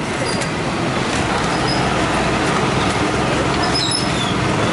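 Masala vadas deep-frying in a large kadai of hot oil, a steady sizzle and crackle, over the hum of street traffic.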